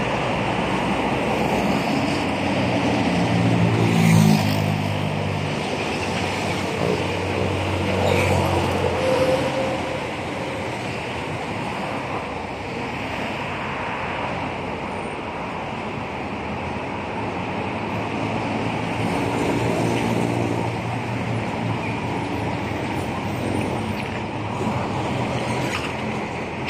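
City road traffic: cars and a motorcycle driving past over a steady hum of road noise, several engines swelling and fading as they go by, the loudest pass about four seconds in.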